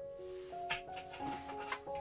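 Background music: a melody of held notes stepping from pitch to pitch, with a few short sharp hits.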